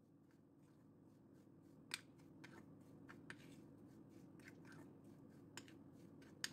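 Faint, scattered clicks and scrapes of a metal spoon against a ceramic bowl while stirring an oiled spice rub, the clearest about two seconds in and just before the end.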